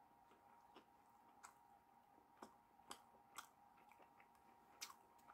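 Near silence with a handful of faint, irregular soft clicks: the mouth sounds of chewing a bite of chicken sandwich. A faint steady tone hums underneath.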